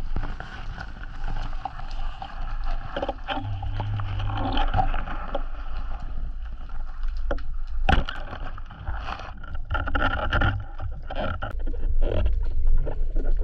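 Muffled underwater rumble and rustling picked up through a camera housing, with one sharp snap about eight seconds in from a speargun firing at a pollack, then scattered knocks and scuffs.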